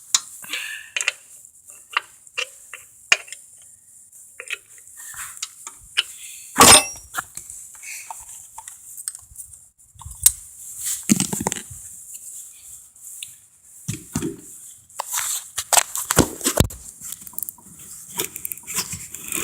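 Scattered metal clinks and knocks of hand tools and wrenches being handled and tried on a mower during an oil change. The loudest clank comes about seven seconds in, with a denser run of knocks later on.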